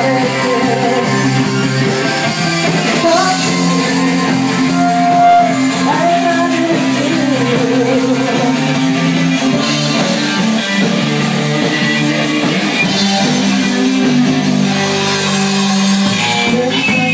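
Live band performance: a woman singing into a microphone over electric guitar, holding one note briefly about five seconds in.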